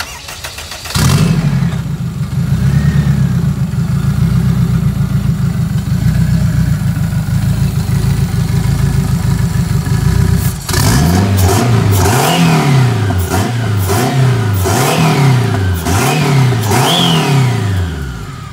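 Turbocharged Honda K24 inline-four in a Civic EG hatchback on its first start-up: cranking, it catches about a second in and runs steadily. From about ten seconds in it is revved repeatedly, the revs rising and falling each time.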